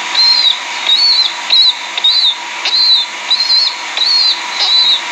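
A young downy pet bird peeping over and over: short, high cheeps that rise and fall, about two a second, with a faint steady hum under them.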